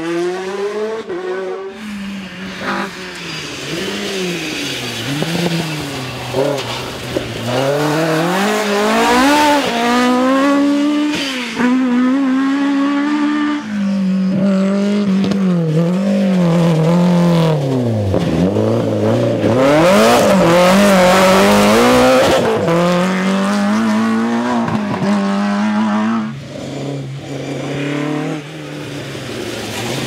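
Rally cars going flat out past one after another, engines revving hard with the pitch climbing and dropping at each gear change and lift for the corners. Among them is a BMW M3 E30 rally car with its four-cylinder engine at high revs. The sound changes abruptly twice as one car gives way to the next.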